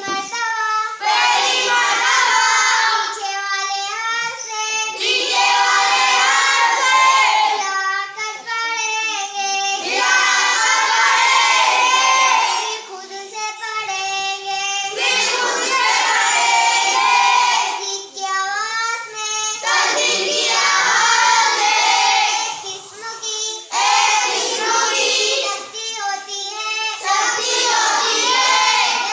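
A girl's voice chanting the spelled-out syllables of Arabic words with tashdeed in sing-song Qaida recitation, alternating every few seconds with a group of children repeating each phrase in unison.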